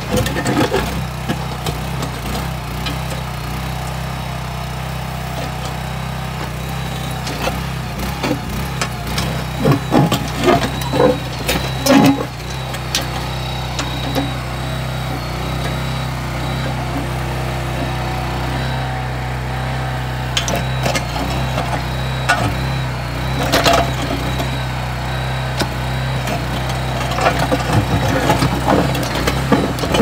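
Small engine of a portable mini backhoe running steadily while the steel bucket digs a trench through rocky soil, with clanks and scrapes of the bucket teeth on stones. The knocks come in a cluster about ten seconds in and as a sharp one later on.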